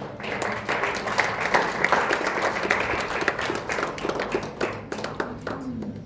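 Audience applauding, with many hands clapping at once, dying away shortly before the end.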